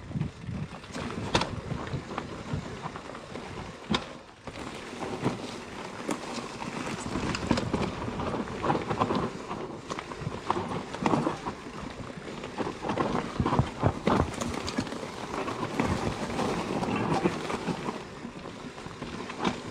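Mountain bike riding down a rough singletrack trail: tyres rolling over dirt, roots and stones, with the bike rattling and knocking unevenly throughout.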